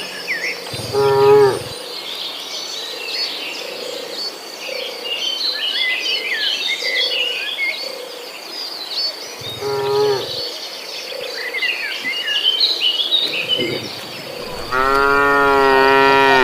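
Cattle mooing three times: a short moo about a second in, another at about ten seconds, and a long, loud moo near the end. Birds chirp and insects buzz steadily underneath.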